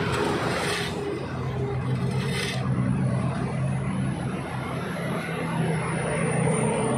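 Backhoe loader's diesel engine running steadily as the machine digs, a low even hum. There are two brief swishes in the first few seconds and a faint high whine from about three seconds in.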